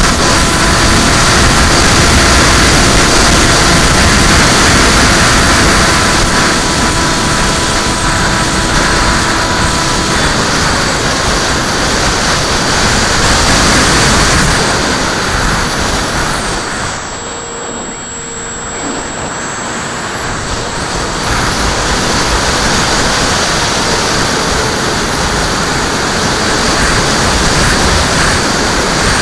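Air rushing over the onboard camera of a Skyfun FPV model plane in flight, with the electric motor's steady whine until about a third of the way in, when the whine stops. The rush dips for a few seconds a little past the middle, then builds again.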